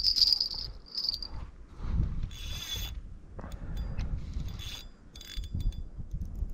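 Fishing reel working in short bursts of mechanical whirring and ratcheting while a hooked common carp is being played.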